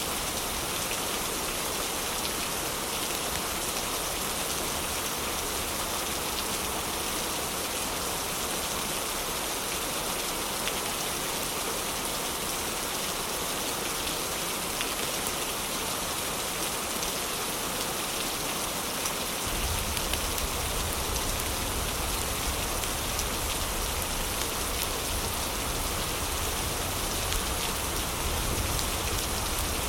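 Heavy rain falling steadily, a dense even hiss of drops. About two-thirds of the way in, a deep low rumble joins beneath it and continues.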